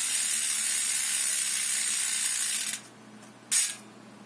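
Freehub of a six-pawl LDCNC rear bicycle hub, freshly regreased, ratcheting as it spins: the pawl clicks come too fast to count and run together into a steady buzz that is not really loud. It cuts off suddenly about two thirds of the way in, and a short burst of clicking follows a moment later.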